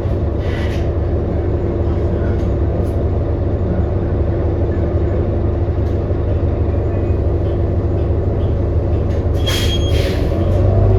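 Cabin sound of a 2018 New Flyer XD40 diesel transit bus: a steady drone from the engine and drivetrain with several whining tones, a bus the uploader calls messed up-sounding. Two short hissing bursts come about nine and a half seconds in.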